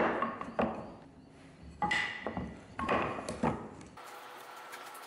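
Solid hardwood table-leg pieces knocking and clacking against each other and the workbench as they are handled and set down. There are several irregular knocks over about four seconds, one with a short ring.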